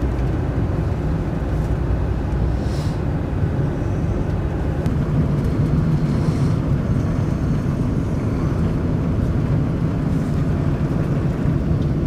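A car driving, its engine and tyre noise making a steady low rumble.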